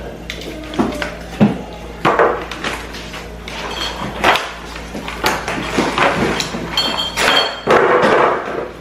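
Kitchen clatter: dishes and containers being knocked and set down, with a few short ringing clinks of glass or crockery.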